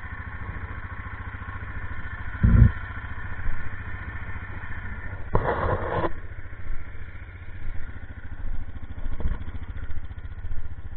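ATV engine idling steadily, with a single thump about two and a half seconds in and a brief clatter about halfway through.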